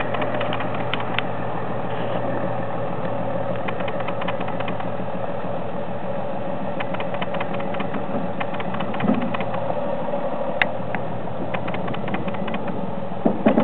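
Unic 75 PC 4x4 fire truck's diesel engine running steadily at low speed as the truck crawls over rough ground, with scattered clicks and rattles from the body and equipment and a few louder knocks near the end.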